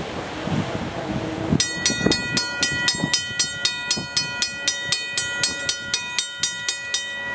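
Empty auto-rack freight train rolling away over the grade crossing, then the railroad crossing bell ringing in a steady rhythm of about three strikes a second, stopping shortly before the end.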